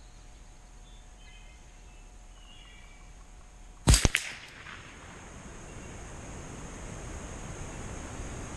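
Savage A22 semi-automatic .22 LR rifle firing: one sharp crack about four seconds in, then a second crack a fraction of a second later.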